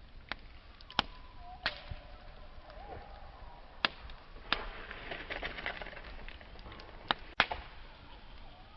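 Wood campfire burning: sharp, loud pops and snaps from the burning wood, about seven strong ones scattered irregularly, with a denser spell of fine crackling about halfway through, over a steady low hiss.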